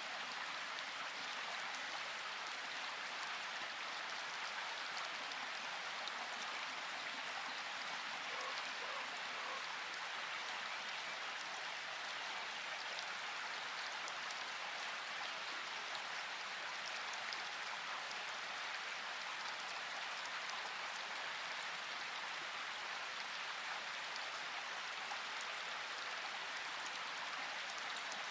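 Steady rain falling, an even patter of drops that holds without let-up.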